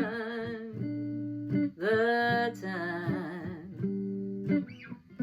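A woman singing a slow blues ballad to her own guitar accompaniment, holding the word "time" with vibrato over sustained guitar chords.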